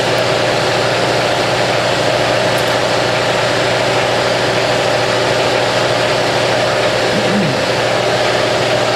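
A motor running steadily with a constant, even hum, typical of a hydraulic press's pump unit idling while the ram stands still.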